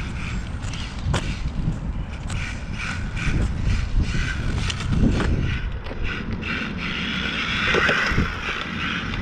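Brushless-motor 4WD RC road car running at full throttle: motor and drivetrain whirring, with scattered sharp clicks over a constant low rumble. The whine swells for a second or two near the end.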